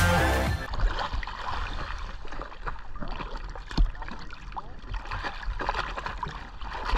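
Water sloshing and gurgling close to the microphone, with scattered small knocks and one louder dull thump about four seconds in.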